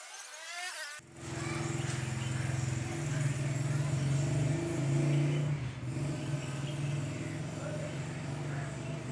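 Piston air compressor running: a steady, low, rapidly pulsing motor-and-pump sound that starts abruptly about a second in.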